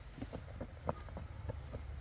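Quick footsteps of rubber boots on dry tilled soil, about five short knocks a second, over a low steady rumble.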